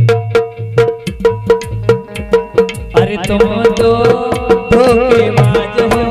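Instrumental interlude of Bundeli rai folk music: a fast, steady hand-drum rhythm over a sustained harmonium drone, with a melody line joining about halfway through.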